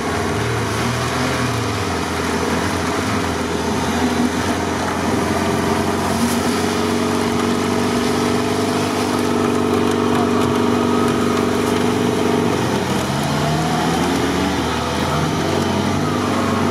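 Lada Niva's engine running hard under load while the car is winched out of deep swamp mud. Its revs climb over the first few seconds, hold steady, then drop near the end.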